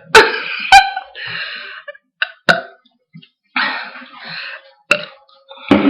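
A person's short, breathy vocal noises in irregular bursts, with two sharp clicks in the first second.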